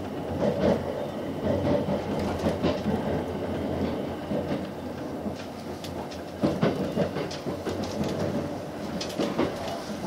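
Running noise heard inside the passenger cabin of a JR West 287 series electric express train: a steady low rumble with irregular sharp clacks as the wheels pass over the track.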